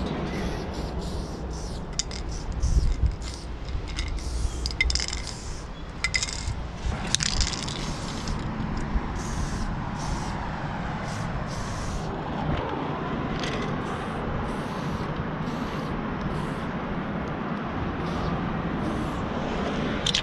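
Aerosol spray-paint can spraying in many short hisses in quick succession, over a steady low rumble.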